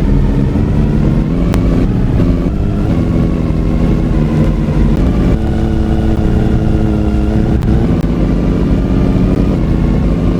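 Background music with low sustained tones whose pitches change every couple of seconds.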